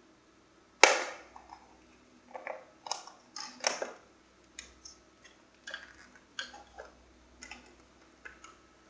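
Handling noise of a hard-plastic radio-control transmitter and its USB cable: one sharp knock about a second in, then a string of lighter clicks, taps and rustles as it is picked up and its controls are pressed.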